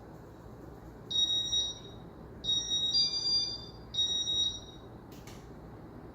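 Electronic beeps from a Casablanca IntelliTouch ceiling fan control, signalling its modes as they are stepped through. There are three high beeps: a short one, a longer one that changes pitch partway, and another short one.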